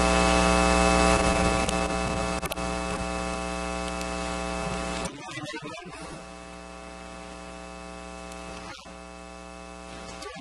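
Loud electrical mains hum with a buzzy stack of overtones, typical of a ground loop in an audio feed; it drops sharply in level about five seconds in and carries on more quietly.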